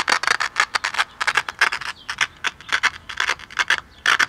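Rapid, irregular scratchy crackling: many short sharp bursts a second with brief gaps.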